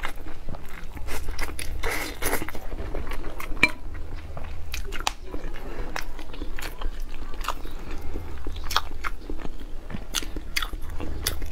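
Close-miked eating of spicy Buldak stir-fried noodles: noodles slurped and chewed, with many short, sharp, wet mouth clicks and smacks over a steady low hum.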